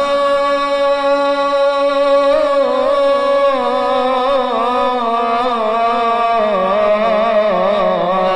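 A voice chanting an Islamic ibtihal, holding one long melismatic note that starts steady and then winds through ornamented turns in its second half.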